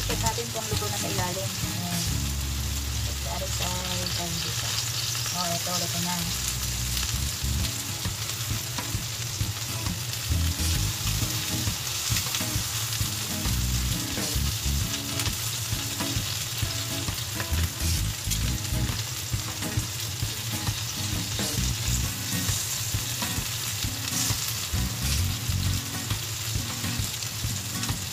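Marinated chicken pieces sizzling steadily on a hot round grill pan, with short clicks and scrapes of metal tongs as the pieces are turned.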